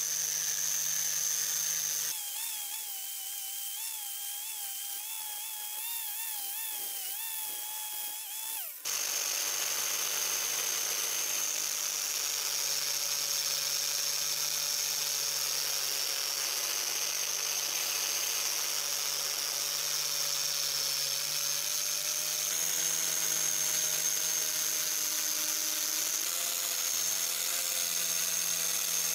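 Power tool running a wire cup brush against the steel adze head, scouring off rust and scale, with a steady whine. Between about two and nine seconds in it drops quieter and its pitch wavers, then it returns to the steady whine, rising slightly in pitch near the end.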